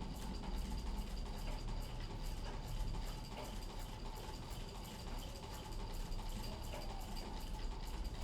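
Singer 15 treadle sewing machine stitching at a steady speed, its needle and mechanism making a fast, even ticking over the low rumble of the foot-driven flywheel and belt.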